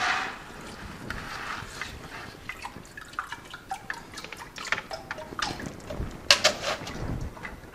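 Water sloshing as hands swish a mesh bag of pea seeds around in a plastic bucket of rinse water, working the sanitizer off the seeds. From about two seconds in it gives way to many irregular drips and small splashes as the bag is lifted out of the water.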